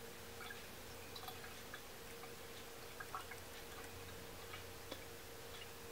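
Faint steady hum of a ceramic cat drinking fountain's small low-voltage pump, with a few soft ticks and drips from the circulating water.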